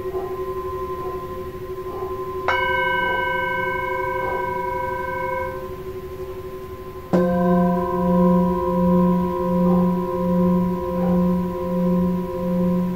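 Hand-hammered Himalayan singing bowls, tuned to F, ringing with long, steady overlapping tones. A bowl is struck with a felt mallet about two and a half seconds in, and its higher tones fade over a few seconds. A larger bowl is struck about seven seconds in, and its deep hum pulses in a slow wobble, a little faster than once a second.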